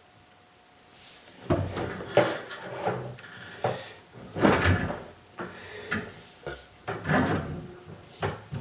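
A quiet stretch, then from about a second and a half in a string of irregular knocks and thumps, several of them loud, with a short ringing after some.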